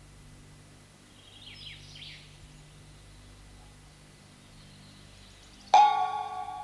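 A few faint bird-like chirps over a low steady hum, then near the end a single loud bell stroke that rings on and slowly fades.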